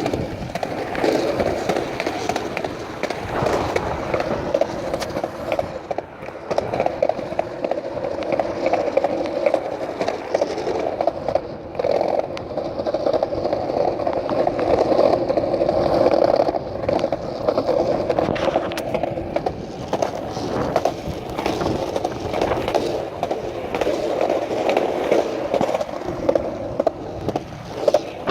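Skateboard wheels rolling steadily over pavement, a continuous rumbling hum with a few sharp clicks along the way.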